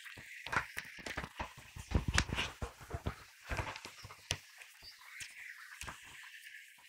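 Irregular knocks and rustling from a phone's microphone being handled while it is swung around, the strongest cluster about two seconds in.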